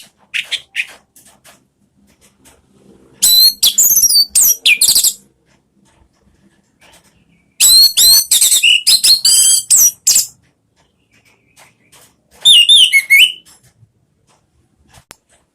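Orange-headed thrush singing its loud, full song in four bursts of rapid, high, fluttering whistled phrases with quick rising and falling slurs, separated by pauses of about two seconds.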